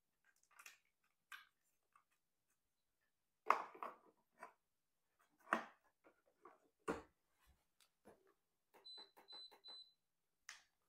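Scattered plastic clicks and knocks as a capsule adapter is handled and a Kotlie 5-in-1 capsule coffee machine's top lid is opened and shut, the loudest knocks about three and a half and five and a half seconds in. Near the end comes a quick run of short high beeps from the machine's control panel as its buttons are pressed.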